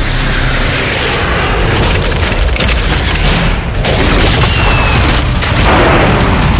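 Film-trailer sound design: loud, deep booms over a continuous dense wash of noise.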